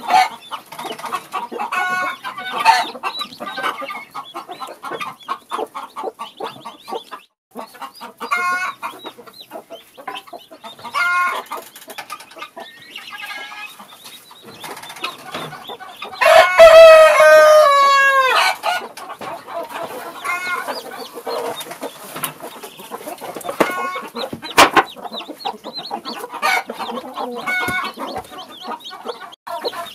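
Domestic chickens: a hen clucking with short calls from her chicks, scattered all through. About halfway through, a rooster crows once, the loudest sound, its long call falling in pitch at the end.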